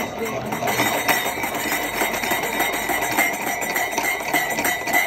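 Stemmed wine glasses swirled on a wooden tabletop, their glass bases scraping and rattling against the wood in a busy run of small irregular clicks, with light glass clinks. The swirling aerates the wine.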